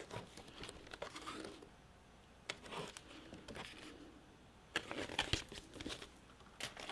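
Faint rustling of paper as the pages of a picture book are turned by hand, in several separate rustles with the loudest about five seconds in.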